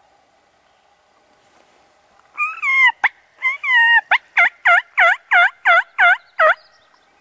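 Series of turkey yelps: two drawn-out notes falling in pitch, then a quick run of about eight shorter yelps, each dropping in pitch. A sharp click sounds between the first notes.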